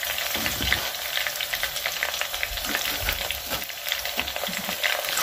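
Chicken wings sizzling and crackling as they fry in hot oil in a pan, with a few soft knocks of a knife on a wooden cutting board.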